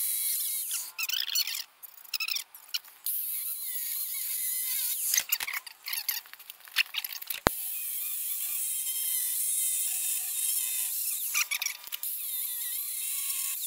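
Angle grinder cutting through the outer rim of a metal belt pulley on a Kubota D1105 diesel engine: a high whine and hiss whose pitch wavers as the disc bites, stopping briefly several times, with a sharp click about halfway through.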